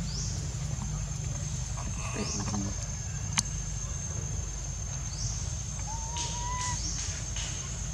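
Outdoor ambience: a steady high-pitched drone with a few short rising chirps and a soft low rumble. A single sharp click comes a little over three seconds in, and a brief whistled note about six seconds in.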